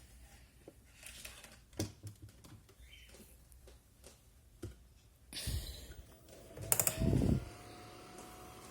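Scattered clicks and knocks as an electric fan is handled and switched, then a loud low thump and the fan's motor starting with a steady hum over the last seconds.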